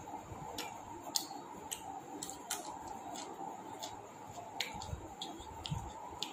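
Someone chewing food with the mouth close to the microphone: a string of irregular wet clicks and smacks, with a couple of soft low thuds near the end, over a steady background hiss.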